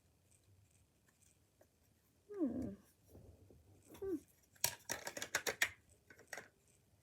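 A short falling vocal sound, then a second shorter one, followed by a quick run of sharp clicks and rattles from the plastic parts of a Nerf Double Strike blaster being handled and fitted back together.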